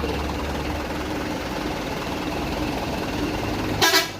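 Truck engine idling steadily, with one short, sharp, loud burst of sound near the end.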